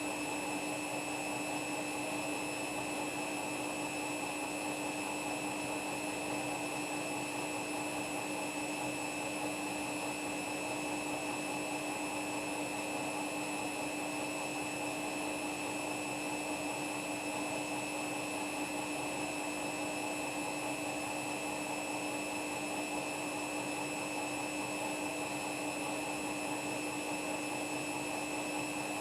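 Front-loading washing machine spinning at a steady high speed with footballs in the drum: a constant motor whine over a steady rushing noise, with no pauses or thumps.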